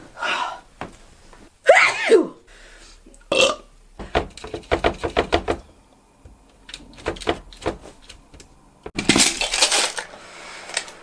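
A woman burping, loudest about two seconds in and dropping in pitch, among a quick run of clicks in the middle and a hissy burst of noise near the end.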